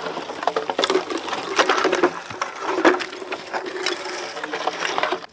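Green bamboo pole dragged over the ground, scraping and crackling irregularly through dry leaves, twigs and brush.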